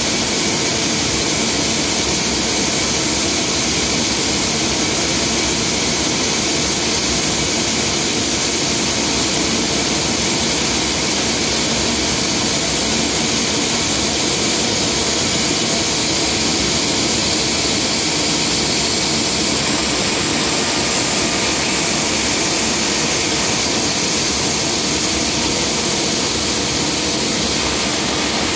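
Steady, loud turbine-like hiss and whine of a Boeing 747's running systems during a flaps check.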